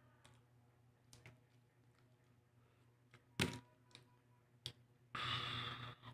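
Eggshell being picked off a boiled egg by fingers on a table: scattered light clicks, a sharper tap about three and a half seconds in, and about a second of rustling crackle near the end.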